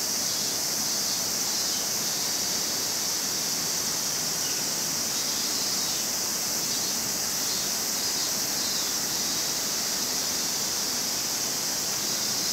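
Summer cicada chorus: a steady, dense high sizzle with no breaks.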